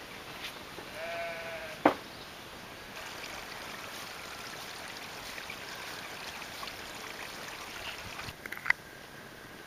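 A sheep bleats once, a wavering call lasting under a second, followed at once by a sharp knock. A few more clicks near the end.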